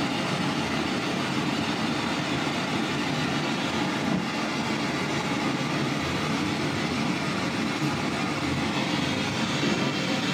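Radio scanning rapidly backwards down the FM band as a spirit box: a steady rush of choppy static with no clear voice.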